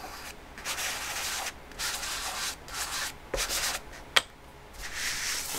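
Chalk pastel rubbed across pastel paper in a series of short strokes, about five of them, with one sharp click about four seconds in.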